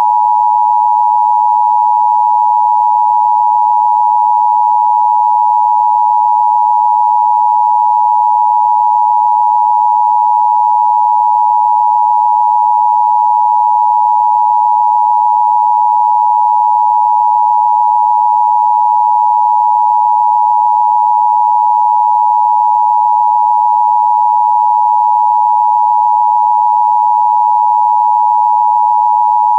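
Emergency Broadcast System attention signal: a loud, steady two-tone electronic hum near 1 kHz, the 853 and 960 Hz pair sounding together without a break.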